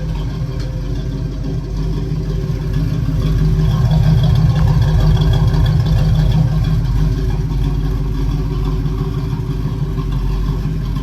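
Cammed Chevrolet 305 small-block V8 idling after warming up, a steady low exhaust rumble that swells slightly in level around four seconds in.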